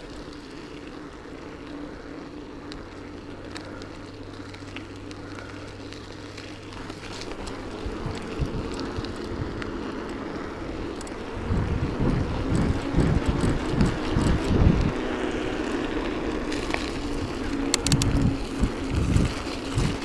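Trek Liquid 30 mountain bike rolling along, with a steady hum from its tyres and drivetrain. From about halfway through, wind buffets the microphone in loud, uneven rumbles.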